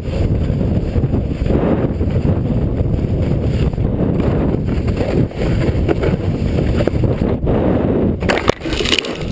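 Wind buffeting the microphone over the rumble of a snowscoot's board running over snow, then a short clatter of hard hits about eight seconds in as the scoot comes off a jump and crashes.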